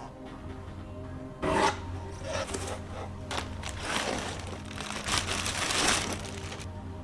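Hands handling PC parts and their packaging: a sharp knock about a second and a half in, then rubbing and scraping. Soft background music plays throughout.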